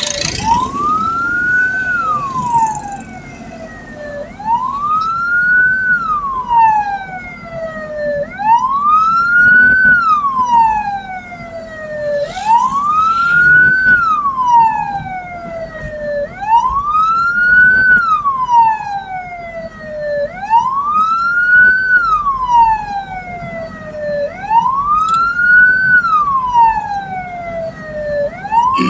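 Hearse siren wailing in a steady cycle: a quick rise in pitch, then a slower fall, repeating about every four seconds over the low rumble of the moving vehicle.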